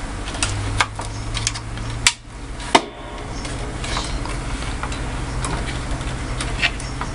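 Garage room tone: a steady low hum with scattered small clicks and knocks of objects being handled, the two sharpest knocks about two seconds and three seconds in.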